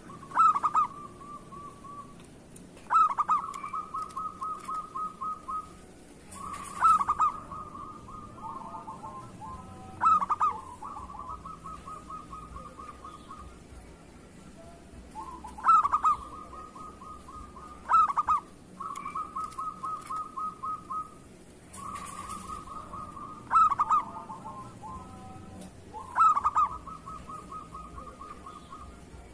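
Zebra dove (perkutut) singing its cooing song: about nine phrases, each opening with a loud note and then a quick run of softer pulsed coos lasting a second or two, repeated every few seconds.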